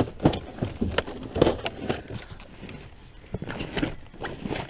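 Irregular knocks, bumps and rustling as a person clambers across a carpeted boat deck and reaches for a landing net.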